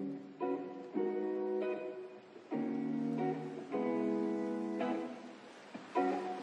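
Background music: acoustic guitar chords strummed and plucked, each chord ringing and fading before the next.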